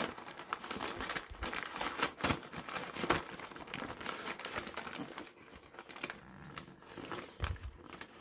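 Newspaper wrapping crinkling and crumpling as hands pull it open, dense and crackly at first and thinning out after about five seconds, with a soft low bump near the end.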